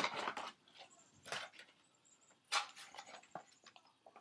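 Handling noises from unpacking a laptop stand: a few short rustles and scrapes of packaging and light knocks, one right at the start, others about a second and a half and two and a half seconds in.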